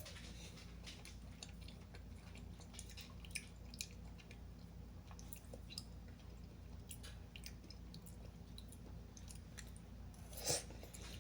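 A person chewing a mouthful of instant noodles, soft wet clicks of the mouth at a low level, with one louder, brief noisy sound near the end.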